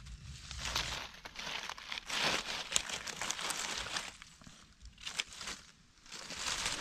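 Dry fallen leaves crackling and rustling in several uneven bursts, with a few sharp crackles, as gloved hands and a knife dig through leaf litter around a mushroom.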